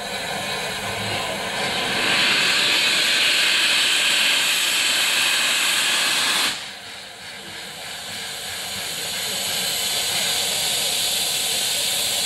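Rebuilt Bulleid West Country Pacific steam locomotive 34046 Braunton venting steam in a loud, steady hiss while standing. The hiss cuts off suddenly about six and a half seconds in, then builds up again.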